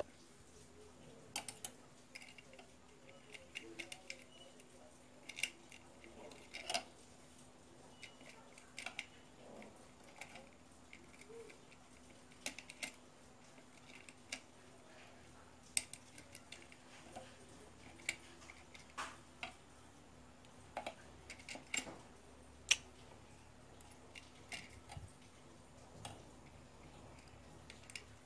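Light, irregular metallic clicks and taps from a small metal tool working at the motor shaft of an opened electric blower, fitting a small ring cut to size onto the shaft. A faint steady hum runs underneath.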